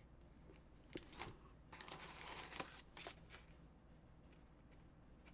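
Faint handling of packaging: a few light clicks and a rustle of paper or cardboard in the first three seconds, then quieter.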